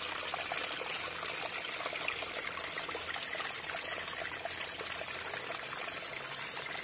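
Small stream trickling and splashing over rocks in a little cascade, a steady sound.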